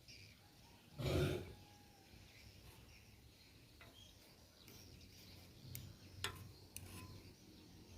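Kitchen handling sounds of a cake mould and utensils: one dull knock about a second in, then a few light sharp clicks near the end, over a faint steady background hiss.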